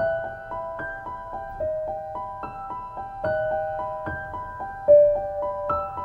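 Background piano music: a gentle, flowing run of single notes stepping up and down, a new note about every quarter second.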